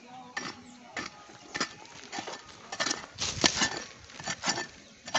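Small metal hand hoe chopping into dry, gritty soil: a run of sharp strikes and scrapes, about two a second.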